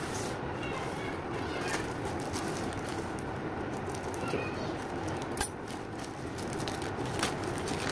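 Plastic courier mailer rustling and crinkling as it is handled and cut open with scissors, with a few sharp clicks, over a steady hiss.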